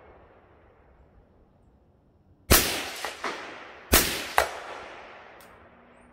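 Two rifle shots about a second and a half apart, each followed by a fainter second crack about half a second later, with a long echo trailing off after each.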